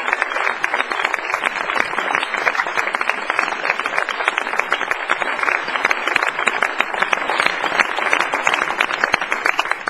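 Large audience applauding steadily, a dense sound of many hands clapping.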